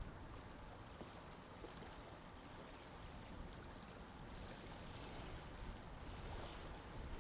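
Lake water lapping softly, with a low wind rumble.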